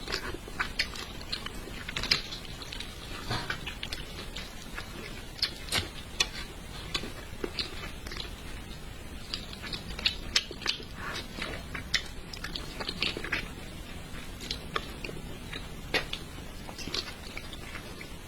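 A person eating braised carp close to the microphone: chewing and mouth smacks, with many short, irregular clicks throughout.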